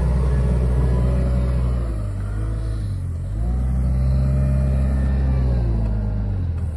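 Engine of a compact wheel loader with pallet forks working close by, its pitch dropping about two seconds in, rising again a second later as it revs, and easing off near the end.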